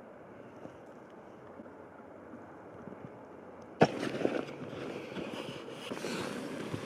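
A faint steady hiss, then a sharp click about four seconds in, followed by louder irregular rustling and handling noise of clothing and gear with small knocks.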